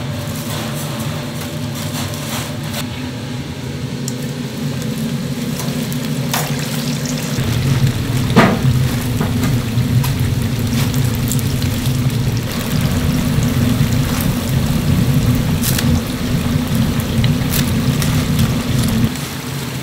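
Chicken pieces deep-frying in a large cauldron of hot oil, sizzling and bubbling, over a steady low rumble that grows louder about halfway through. A few sharp clinks of the metal mesh strainer and tongs against the pot.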